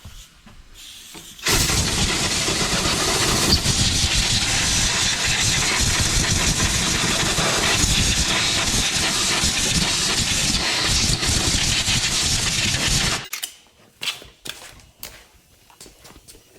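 A loud, steady hissing jet, used to clean the leaking power steering pressure hose under the car. It starts suddenly, runs for about twelve seconds and cuts off abruptly.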